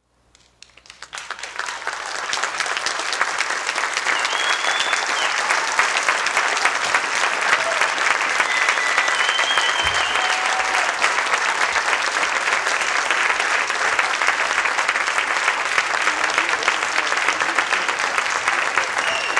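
Large audience applauding: clapping swells up out of silence over the first two seconds, then holds steady and dense.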